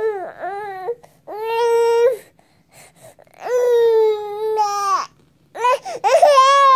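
Baby crying: four drawn-out cries with short pauses between them, the last still going at the end.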